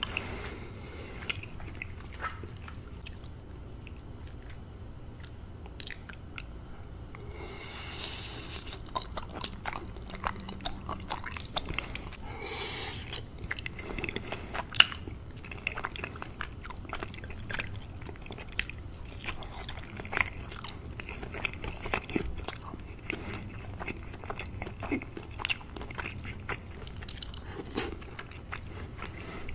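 Close-miked eating: a person chewing mouthfuls of macaroni and cheese, with many short, irregular wet mouth clicks.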